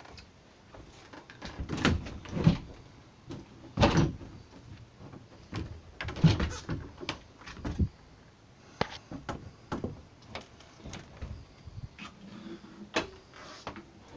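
Wooden RV cabinet doors being opened and shut by hand: an uneven series of knocks and thumps, heaviest in the first half, with lighter clicks after.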